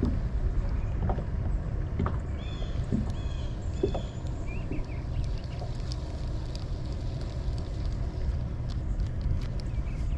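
Wind buffeting the microphone with a steady low rumble, out on the water in a kayak, with a few light knocks. About two to four seconds in, a short high call repeats three times.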